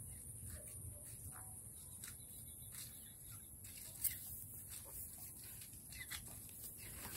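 Native chickens in a coop making a few faint short clucks and calls, with scattered light ticks and one sharp click about four seconds in.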